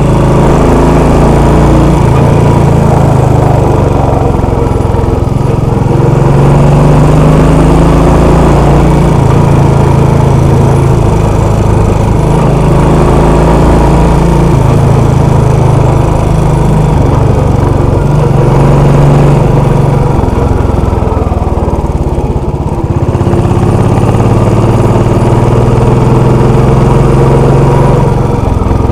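Royal Enfield Classic 500's single-cylinder engine running under way. The engine note shifts up and down in pitch several times as the throttle changes.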